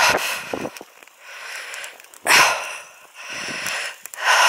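A hiker breathing hard close to the microphone, with a loud breath about every two seconds and softer ones in between, from the effort of a steep uphill stretch.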